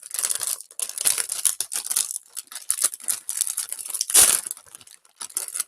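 Crinkly plastic wrapper of a packaged noodle snack being handled and torn open, with a louder rip about four seconds in.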